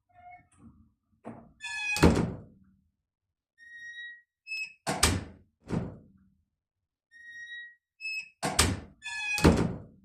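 Interior door fitted with a Rutland overhead door closer, let go again and again. Each time it gives short squeaky creaks and then a heavy thunk as it shuts, about five thunks in all.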